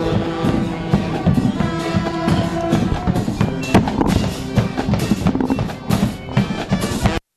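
Marching band playing, with drums beating under held horn notes; the music cuts off suddenly near the end.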